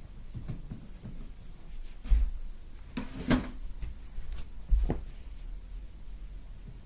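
A few dull knocks and bumps with a short clatter about three seconds in; the loudest knocks come about two seconds in and again near five seconds.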